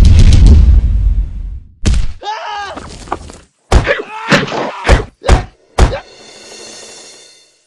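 Cartoon fight sound effects: a heavy crash fading away, then a string of hard whacks and thuds, six in all, with a yelling voice among them, and a hissing whoosh near the end.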